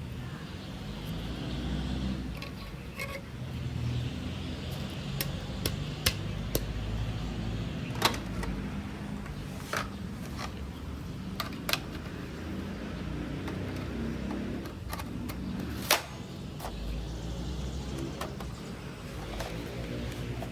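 Scattered sharp clicks and knocks of parts being handled and fitted together, over a low, uneven rumble, as an airsoft L96A1 sniper rifle is assembled.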